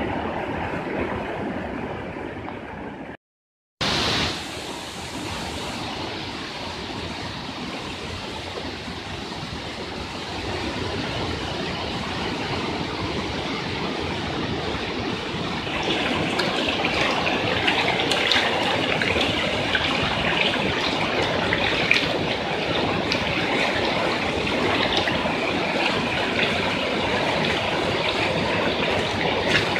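Rushing floodwater and heavy rain, a steady rush of water noise. It cuts out briefly about three seconds in and grows louder and hissier about halfway through, with scattered sharp ticks.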